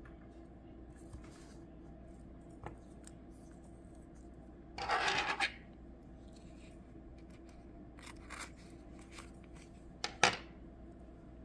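Small scissors cutting washi tape: one cut lasting about a second about five seconds in, then a couple of short snips, the sharpest near the end, with faint handling of tape and paper between.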